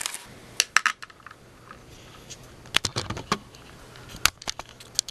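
Handling noise from a small video camera being picked up and moved: a scattering of sharp clicks and knocks.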